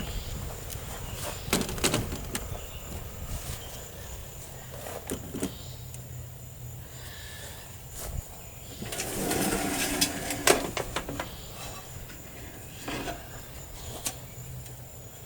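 Scattered footsteps and knocks, with a louder stretch of bumping and rustling about nine to ten seconds in, as someone steps into and across an old truck camper's floor.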